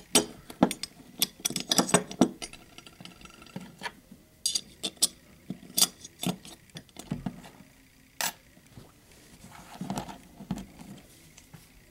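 Small metal lever-lock parts clicking and clinking as the levers and bolt are handled and fitted back into the lock case: irregular light clicks with short pauses between them.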